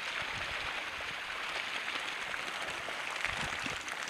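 Water splashing and churning as a beach seine packed with vendace is dragged into the shallows, the fish thrashing in the net. Two dull low thuds come about half a second in and near the end.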